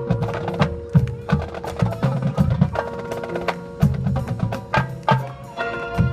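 A marching band's percussion playing a busy rhythmic passage: drum hits and sharp knocking strikes over ringing pitched mallet notes.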